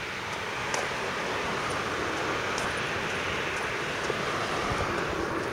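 A vehicle passing by; a steady rush of engine and tyre noise builds up, peaks a few seconds in, then starts to fade.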